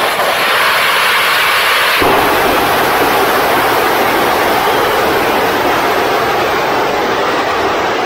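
A 110 kN hybrid rocket engine firing on a static test stand: a loud, steady rushing noise of rocket exhaust, which shifts in character about two seconds in and then holds steady.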